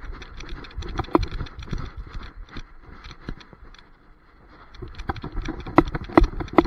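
Handling noise from a camera strapped to a running dog: irregular knocks, rattles and thumps as it jolts with his footfalls on the grass. A brief lull comes about four seconds in, and the sharpest knocks come near the end.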